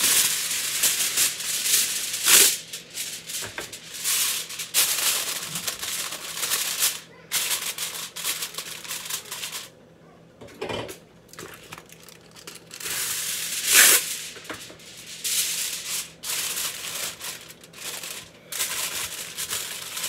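Aluminium foil pulled from the roll, torn off and crinkled and crimped over a baking dish: irregular crackling rustles, with a couple of louder sharp crackles about two and fourteen seconds in and a brief lull around ten seconds in.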